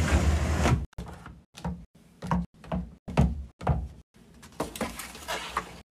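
Plastic bottles and cans of cleaning products being handled and set down on a cabinet shelf and in a plastic basket: a short scrape at the start, then a run of light, separate knocks and clunks.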